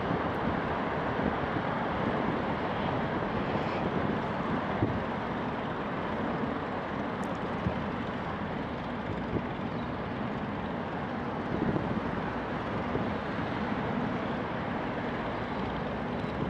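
Steady road-traffic noise from the road bridges crossing the river: an even, continuous hum of passing vehicles.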